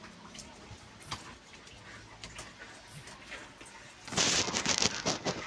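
A dog sniffing rapidly right at the microphone, loud and close, starting about four seconds in. Before that there are only faint light ticks.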